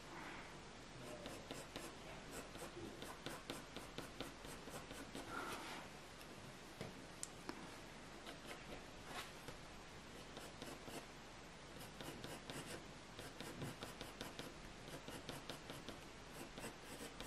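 Staedtler Mars Lumograph HB graphite pencil scratching on hot-press watercolour paper: many short, faint strokes in quick succession as grass strands are drawn.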